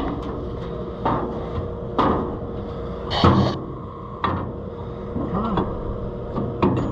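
A few separate knocks and clanks of hand tools and parts handled against metal, about one a second. The loudest is a short rattling clatter about three seconds in.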